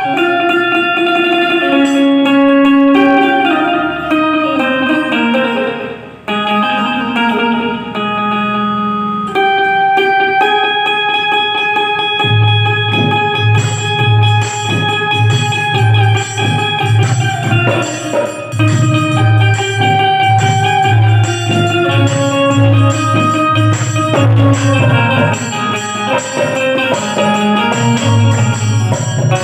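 Indian benjo (keyed banjo) playing a melody of plucked, stepping notes, joined about twelve seconds in by a steady low beat.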